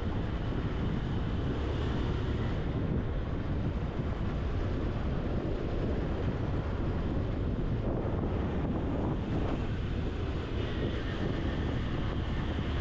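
Wind buffeting the microphone of a moving motorcycle, with the Honda CG 160 Titan's single-cylinder engine running steadily underneath at road speed.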